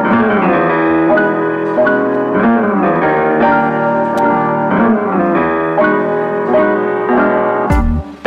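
Background music led by piano or keyboard chords, dipping briefly near the end.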